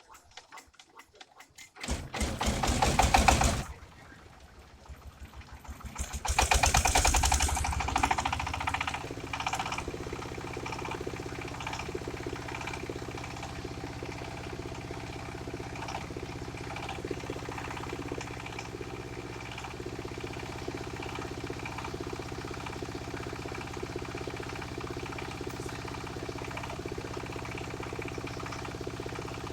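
Engine of a mobile circular-saw rig being started: a loud burst about two seconds in that stops after a second and a half, a second burst about six seconds in, then the engine settling into a steady run.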